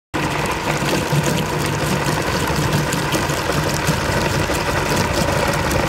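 Belt-driven meat grinder running steadily and grinding chicken feet. The drive hums underneath while the auger crushes the feet through the plate, with many small cracks and crunches of bone.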